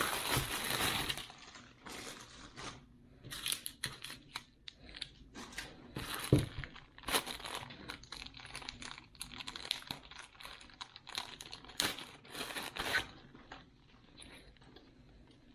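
Packaging crinkling and rustling in uneven bursts, with small handling knocks, as the binoculars and their pouch are unpacked. It dies away near the end.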